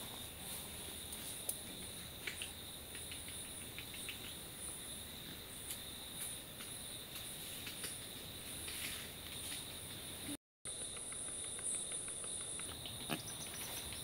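Steady chorus of forest insects, an unbroken high shrill at two pitches, with scattered faint clicks; the sound cuts out for a moment about ten seconds in.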